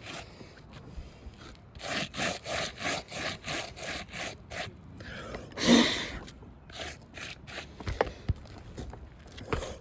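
A hand brushing and rubbing across asphalt roof shingles, about ten gritty scraping strokes at roughly three a second, then a short rush of blown air about halfway through, and a few more strokes. It is the sound of chalk and loose granules being cleared from creased, brittle shingles.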